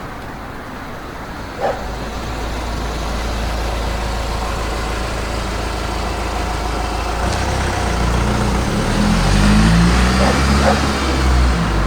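Suburban street ambience: a dog barks once, then a passing vehicle's low engine rumble builds steadily to its loudest about nine to ten seconds in. A few more short dog barks come near the end.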